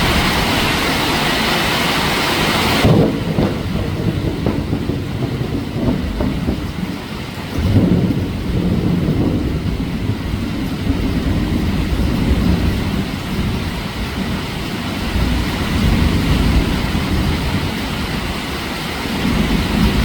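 Heavy rain hissing, then about three seconds in the rain hiss suddenly thins and thunder takes over. Low rolling rumbles follow, with a loud clap about eight seconds in and more rumbles swelling and fading after it.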